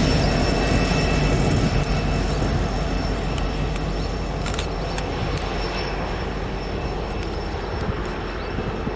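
Diesel-electric locomotive at the end of a loaded coal train running as it pulls away, its engine rumble and wheel-on-rail noise slowly fading, with a faint steady high whine and a few light clicks around the middle.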